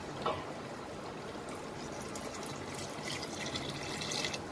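Water poured into a clay pot of chicken curry masala, splashing into the thick gravy, loudest from about three seconds in. A light knock sounds just after the start.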